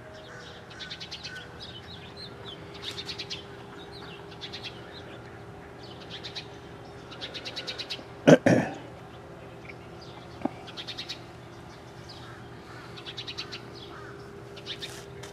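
Small birds chirping in short, rapid high trills that repeat every second or two, over a faint steady hum. One loud thump about eight seconds in.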